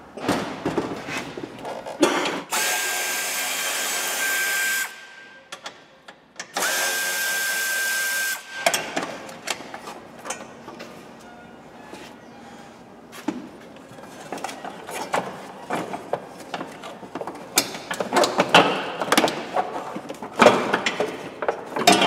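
Power drill-driver running twice in steady spells of about two seconds each, spinning out the bolts of a car's battery tray. After that come scattered metallic clicks and rattles of tools and parts being handled, busier near the end.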